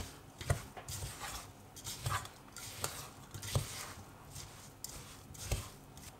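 A thick muesli-bar mixture of oats, ground nuts, melted coconut fat and cocoa being stirred in a bowl, with scraping and irregular knocks of the utensil against the bowl about twice a second.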